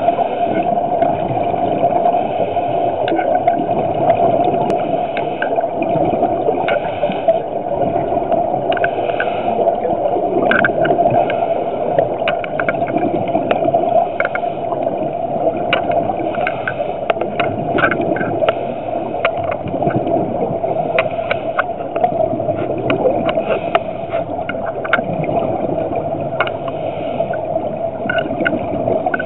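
Scuba diver's exhaled air bubbles from the regulator, a continuous bubbling and gurgling heard underwater, with many small clicks.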